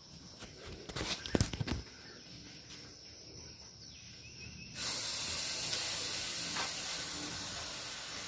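A few short knocks about a second in over quiet surroundings, then, from about five seconds in, a sudden steady high-pitched hiss.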